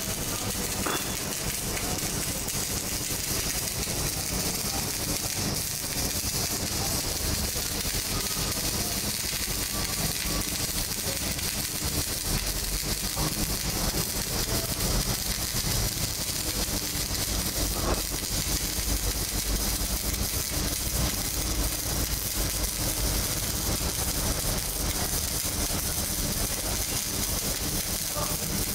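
Electric arc welding: the arc crackles and sizzles steadily, with a low hum underneath.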